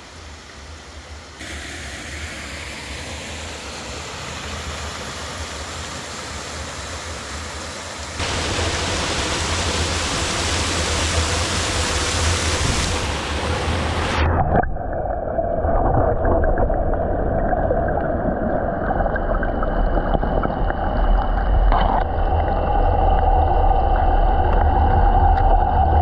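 Rushing water of a waterfall, a loud, steady roar that gets abruptly louder a few times. About halfway through it turns duller, with a steady hum mixed in.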